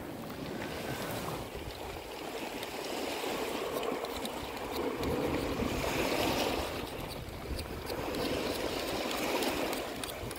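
Sea waves washing on the shore in slow swells, with some wind on the microphone. Faint light clicks of a steel knife working mussel shells in a wooden bowl.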